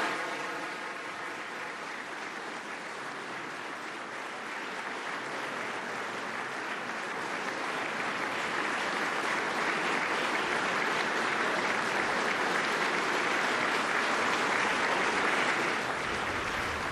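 Large audience applauding at length. The clapping eases a little in the first few seconds, swells to its fullest past the middle, and falls off near the end.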